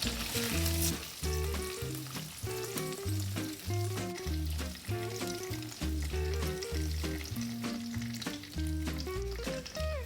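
Marinated tofu lumps deep-frying in hot oil, a steady sizzle, with background music playing a slow melody over a bass line.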